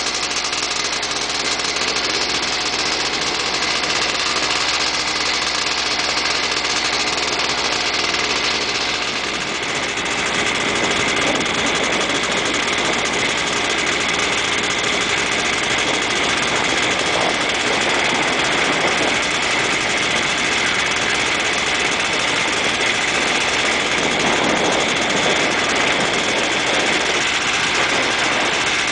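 Quad (ATV) engine running steadily while riding along a gravel lane, its note shifting about ten seconds in.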